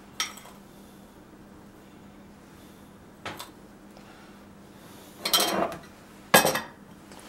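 Metal spoon clinking and knocking against bowls as sugar is spooned into a mixing bowl of eggs: a few scattered knocks, a short scrape a little after five seconds, and a sharp knock about a second later.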